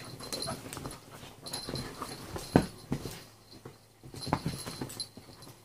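A beagle and a dachshund play-fighting on a leather sofa: short dog whimpers and breathing sounds among scuffling, with one sharp click about two and a half seconds in and a quieter spell a little after.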